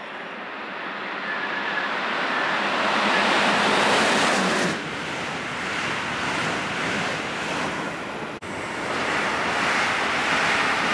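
Electric passenger train approaching and running beneath, a rush of wheels on rails that builds to its loudest about four seconds in, then holds steady as the carriages pass below. The sound cuts out for an instant a little past the middle.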